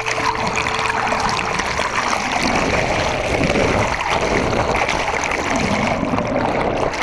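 Water rushing and gurgling against a submerged camera alongside the hull of a clinker-built wooden sailing dinghy, an even, steady wash of water noise.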